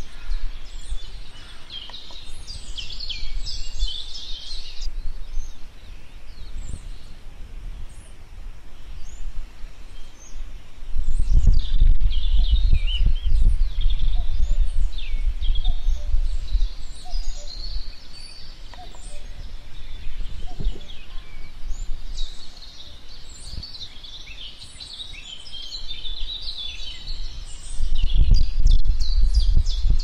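Many wild birds chirping and calling, short high sweeping notes throughout. A low rumble swells about eleven seconds in and again near the end.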